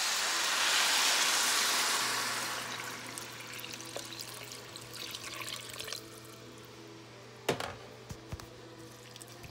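Water poured into a hot pot of fried rice and meat for pulao: a loud rushing hiss for about two seconds that dies away over the next few seconds. A single sharp knock follows about seven and a half seconds in.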